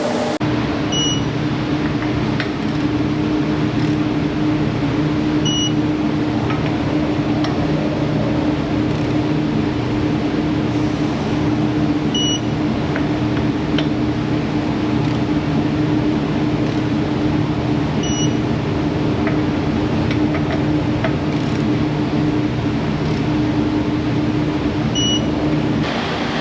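Brake fluid flush equipment's electric pump running with a steady hum while the brake fluid is being exchanged, with a short high beep about every six or seven seconds.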